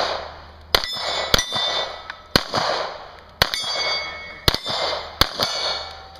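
About six pistol shots, roughly a second apart, each followed by the ringing of a steel plate target being struck.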